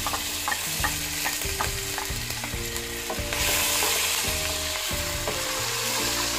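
Chopped onion sizzling in hot bacon fat in a pot, with a wooden spoon scraping and tapping the pot as it is stirred. The sizzle grows louder about three seconds in.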